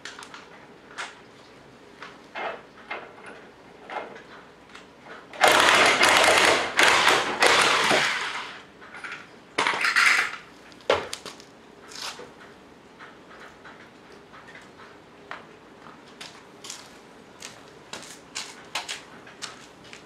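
Corded Emerson EM-244 impact wrench run in a loud burst of about two and a half seconds, then a shorter burst, winding the scissor jack's screw to lower the car. Scattered clicks and knocks of the jack and tools being handled come before and after.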